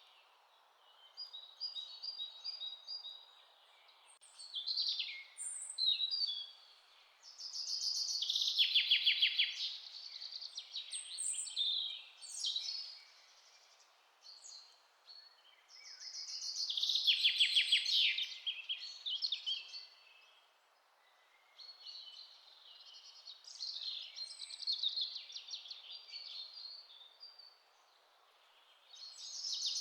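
Several songbirds singing and calling over one another, with fast rattling trills about 9 and 17 seconds in, over a faint steady hiss.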